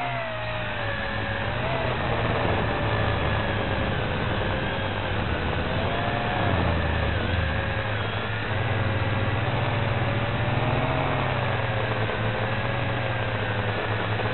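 Small quadcopter's electric motors and propellers whining, the pitch wavering up and down as the throttle changes, heard from on board over a steady hiss.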